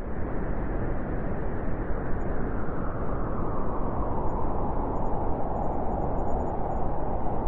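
Howling wind: a steady rushing noise with a whistling band whose pitch sinks a little partway through.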